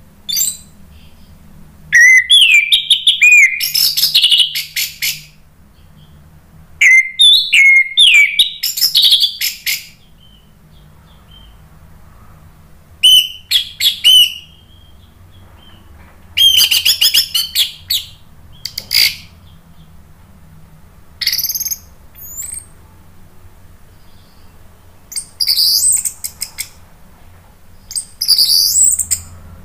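Orange-headed thrush singing loudly in short phrases of fast whistled notes that glide up and down, with rapid repeated notes mixed in. There are about seven phrases, separated by pauses of one to two seconds.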